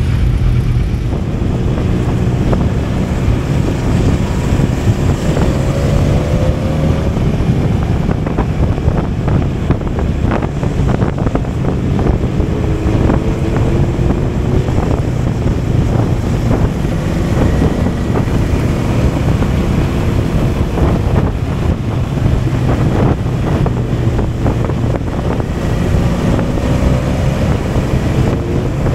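Wind rushing over a bike-mounted camera's microphone, over the low running of a Benelli motorcycle's engine on the move; the engine note rises briefly a few times as it pulls.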